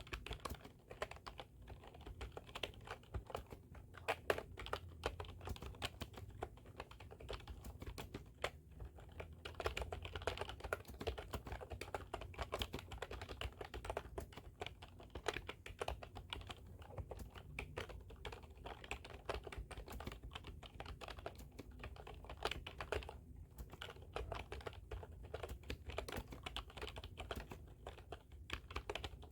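Continuous fast typing on a computer keyboard, a dense irregular run of key clicks with a few brief pauses.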